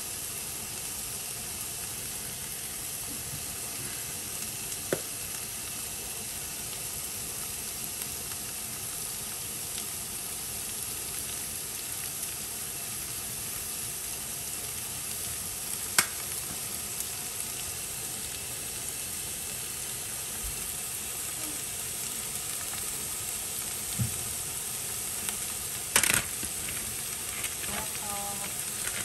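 Sliced onions and celery sizzling steadily as they sauté in a frying pan, with a few sharp taps now and then, the loudest near the end.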